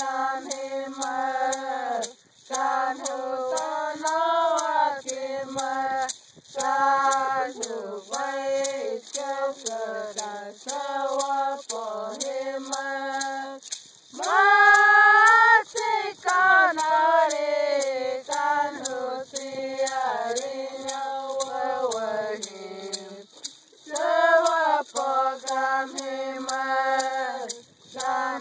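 Tohono O'odham traditional song sung in short repeated phrases, each breaking off after a second or two. About halfway through comes one louder, higher phrase held longer. A steady fast ticking beat runs underneath.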